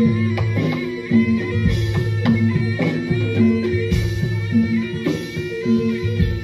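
Live Javanese gamelan music played for a jaran kepang dance: a repeating melody of struck pitched tones over deep strokes that come about every two seconds.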